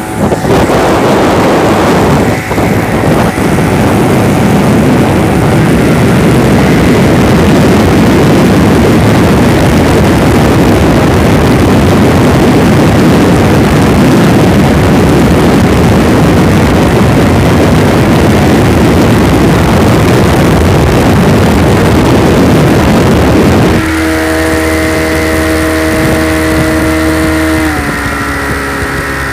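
1960 Mercury Merc 700 two-stroke outboard driving a boat at speed, its note buried in a loud rush of wind and water. About three-quarters of the way through the throttle comes back: the level drops and the engine's tone stands out clearly, then steps down in pitch again near the end.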